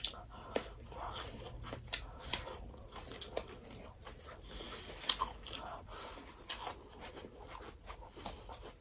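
Close-miked eating: two people chewing and biting, with crunching of raw shredded cabbage. Irregular sharp clicks and mouth smacks come every fraction of a second.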